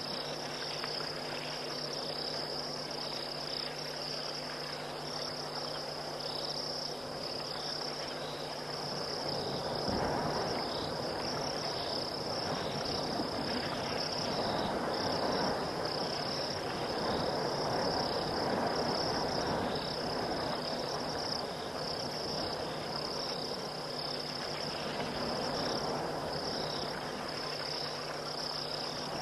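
Night chorus of crickets and other insects, a dense steady high-pitched trilling. A lower, noisier layer swells in about a third of the way through and eases off near the end.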